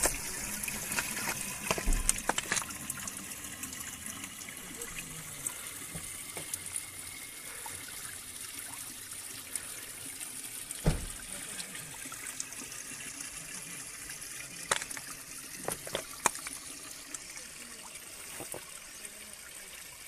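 Spring water pouring from a plastic pipe and splashing onto rocks, a steady rush that slowly fades. A few sharp knocks sound now and then.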